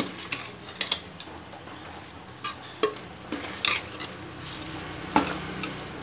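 Metal ladle clinking and scraping against a metal pot while stirring boiled chickpeas into a thick masala, with irregular knocks, the loudest about five seconds in.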